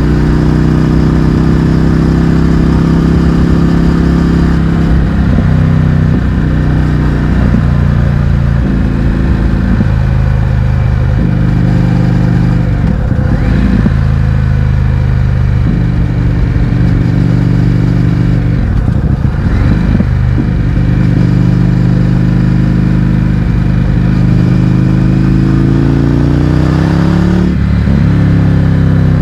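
Indian FTR 1200's V-twin engine through an Akrapovič exhaust with the baffles removed, running under load at road speed. The engine note holds steady, dips at several points as the throttle comes off, and climbs in pitch near the end before dropping sharply as it shifts up.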